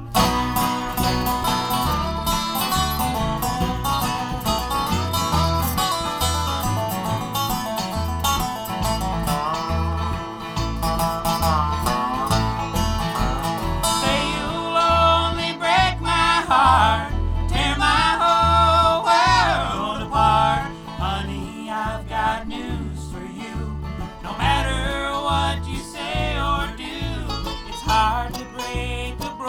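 Bluegrass band playing an up-tempo instrumental passage, with banjo and guitar picking over a steady bass line. It starts abruptly at the top, and a sliding lead melody comes in about halfway through.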